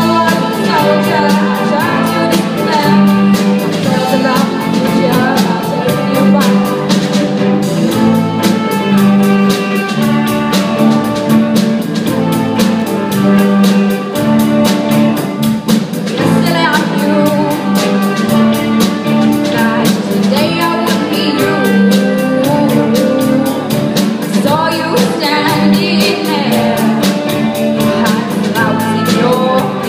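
Small band playing a song live: a woman singing over acoustic guitar, keyboard, bass guitar and drum kit.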